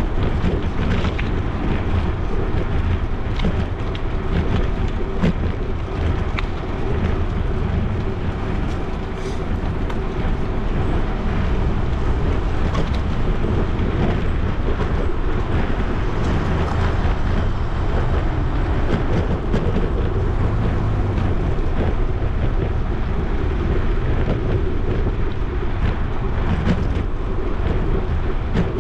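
Steady wind rumble on a GoPro's microphone mixed with bicycle tyre noise on asphalt while riding, with occasional light clicks and rattles from the bike going over bumps.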